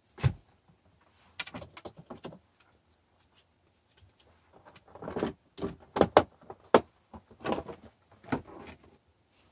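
Craft tools and supplies being handled and put away on a desk: scattered clicks, knocks and rustles in small clusters, the sharpest knocks about six to seven seconds in.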